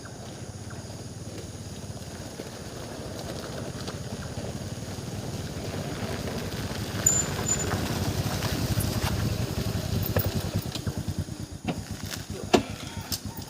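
An engine, perhaps a motorbike or boat passing nearby, with a fine pulsing rumble that grows louder over several seconds and then eases, followed by a few sharp clicks near the end.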